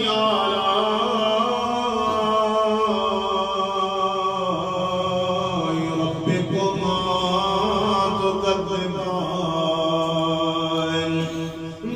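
A man's voice reciting the Quran in a melodic, tajweed style, drawing out one long ornamented phrase. The pitch slides gently up and down with barely a break, then dips briefly near the end.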